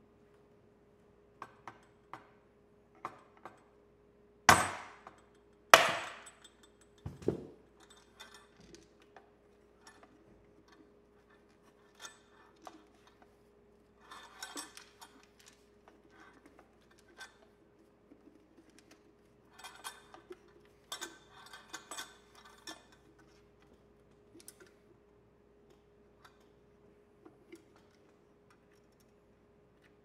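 Two sharp, ringing hammer blows about a second and a half apart, then a duller knock: the dishwasher drain knockout plug of a Badger 100 garbage disposal being driven out. Lighter clicks and rattles follow as the unit is handled.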